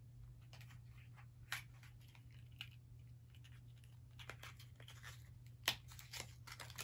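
Faint tearing and crinkling of a cosmetics package, a liquid glitter eyeshadow being unwrapped, with scattered small clicks and rustles; the sharpest clicks come about a second and a half in and near the end. A low steady hum sits underneath.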